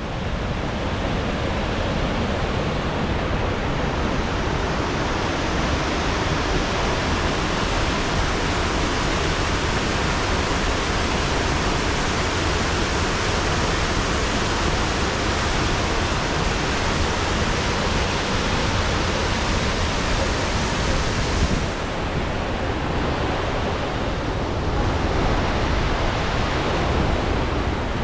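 A river waterfall pouring in white-water cascades over rock ledges: a loud, steady rush of water, its hiss dulling slightly about two-thirds of the way in.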